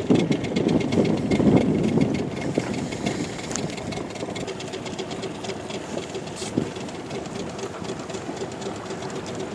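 Outboard motor of an inflatable boat running steadily under way, with water noise. It is louder for the first couple of seconds, then settles to a quieter, even run.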